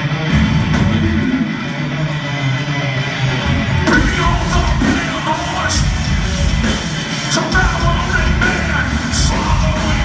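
Live heavy rock band playing with electric guitars, bass, drums and keyboard. For the first few seconds the drummer keeps steady cymbal ticks under the guitars, then about four seconds in the full band comes in and a singer's shouted vocals join.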